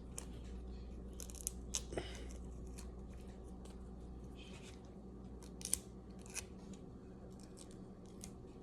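Quiet, scattered clicks and snips of small objects being handled, the louder ones around two seconds in and again near six seconds, over a low steady hum.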